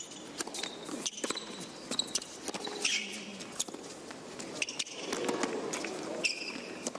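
Tennis rally on a hard court: a serve, then sharp racket strikes and ball bounces trading back and forth, with brief high-pitched shoe squeaks, over a hushed crowd.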